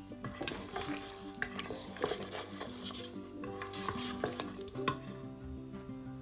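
Wooden spatula stirring freshly pressure-cooked meat curry in a stainless steel Instant Pot inner pot, with wet scraping and light knocks against the pot for about five seconds. Background music plays underneath.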